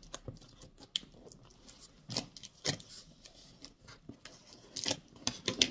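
Scissors cutting open a cardboard parcel: a string of short, irregular snips and scrapes, the sharpest near the end.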